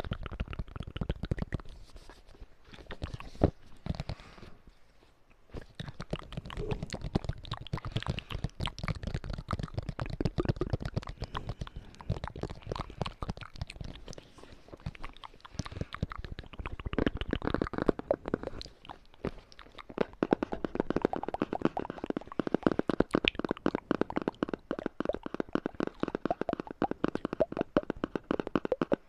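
ASMR mouth sounds with tapping: a dense run of rapid clicks and taps, with a short lull about five seconds in.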